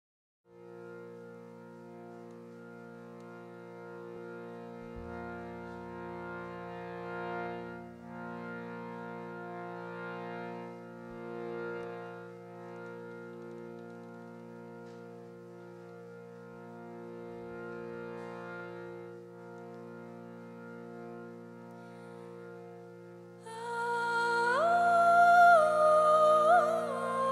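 A steady drone of held notes on a keyboard instrument, swelling gently, with a deep low note joining about five seconds in. Near the end a woman's voice begins singing over it.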